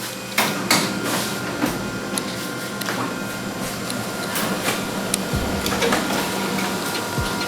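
Canon imageRUNNER 2018 photocopier running a test print with its repaired fuser unit: a steady motor hum with held tones and frequent clicks and knocks from the paper-feed mechanism.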